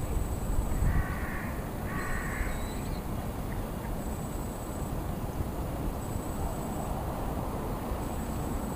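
A bird calling twice, two short calls about a second apart, over a steady low background rumble.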